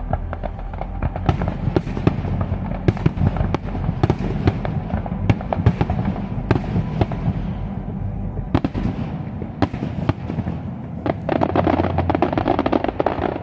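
Aerial firework shells bursting in a steady run of sharp bangs and pops over a low rumble, turning to dense crackling near the end.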